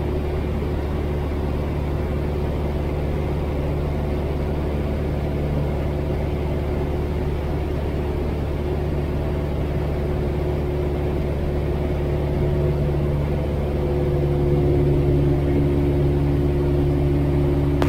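1957 Piper Tri-Pacer's piston engine and propeller droning steadily in flight, heard inside the cabin; it grows a little louder about three-quarters of the way through.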